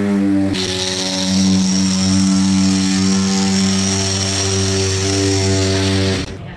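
An electric machine motor running at a steady pitch with a constant hum, a hissing rush joining about half a second in; it cuts off abruptly near the end.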